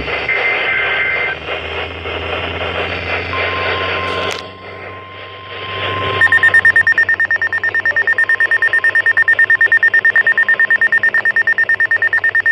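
Weather radio receiving an emergency alert broadcast through heavy static: a short burst of warbling data tones comes first, then a steady tone. About six seconds in, the Zone Guard weather radio's own alarm starts a loud, rapid beeping on one high note. The receiver flags the test as an unrecognized message because the reception is so poor.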